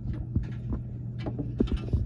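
Light, irregular clicks and taps of small metal parts being handled, over a steady low hum.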